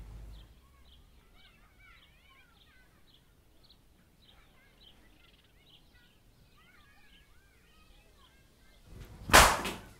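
Faint bird chirping in the background, then a single loud, sharp bang a little after nine seconds in.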